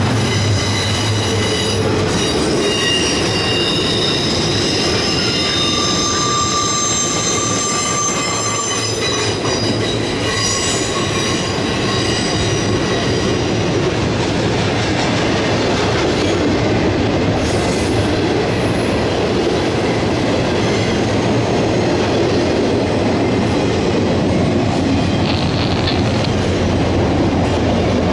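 Double-stack intermodal well cars rolling past at close range, with steady rumble and wheel clatter on the rails. Steel wheels squeal in several high tones for about the first half, then die away.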